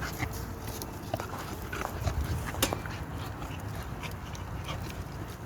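American bully dogs moving about: scattered clicks and scuffs with a few faint, short whines, and one sharper click about two and a half seconds in.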